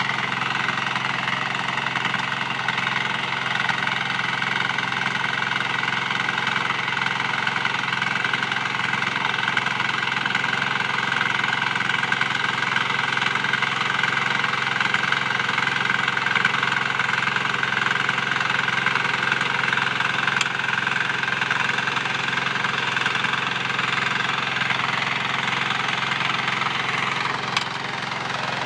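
Walk-behind mini tiller's small engine running steadily under load as its rotary tines till the soil, dipping slightly in level near the end.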